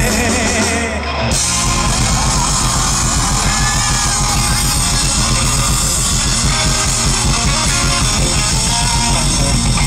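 Live rock band playing loud with electric guitar, heard from the crowd through the concert sound system; after a brief dip about a second in, the full band comes back in and keeps going.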